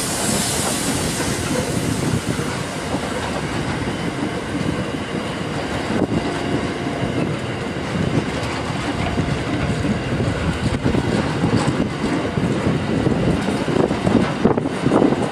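Grain hopper wagons of a freight train rolling past: a steady rumble of wheels on rail, with wheel clacks over the rail joints that grow louder and more frequent near the end.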